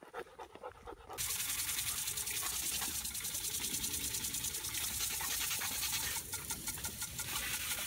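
Faint crunches of footsteps on gravel for about a second. Then the steady hiss of water spraying from a hose nozzle, with rapid spattering as a dog bites at the spray.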